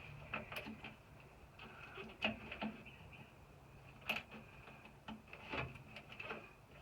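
Scattered light clicks and taps of small metal parts as the accelerator cable is hooked onto a VW Beetle's gas pedal.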